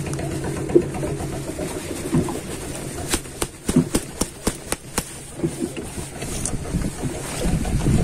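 An engine running steadily with a low hum, overlaid a few seconds in by a run of sharp clicks and knocks from handling. Low wind rumble on the microphone builds near the end.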